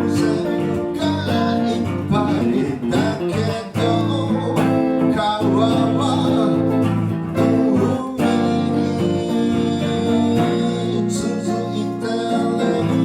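A live band playing, with guitar to the fore, plucked and strummed over a steady rhythm.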